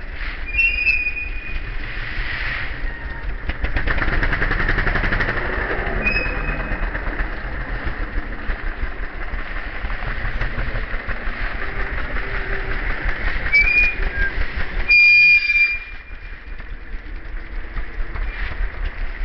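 Trials motorcycle engines idling and revving in short bursts nearby, loudest about four to six seconds in. Short high whistle-like chirps come and go over the top, with a brief louder burst near the end.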